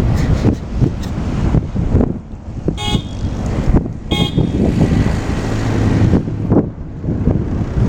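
Blizzard wind buffeting the microphone, with two short toots of a vehicle horn about a second apart.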